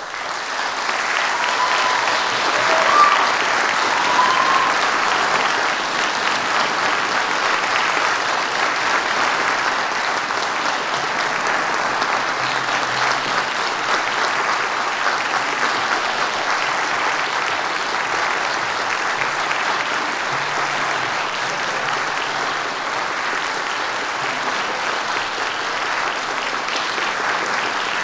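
A concert audience applauding: the clapping starts suddenly and keeps going steadily, with a few short cheers about two to four seconds in.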